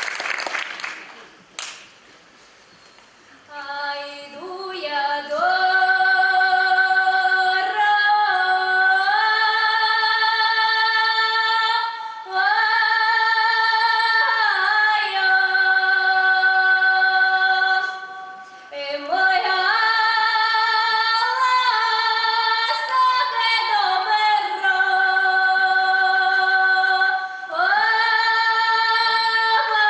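Applause dies away, then a young woman sings a Russian folk calendar song solo and unaccompanied. She sings in long phrases of held notes with short breaths between them.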